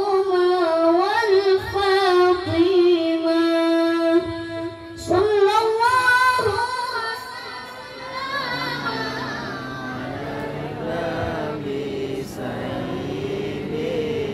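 Child reciter chanting the Quran in a high, melodic voice, with long held notes and ornamented runs. About eight seconds in the high voice stops and a lower, quieter voice carries on.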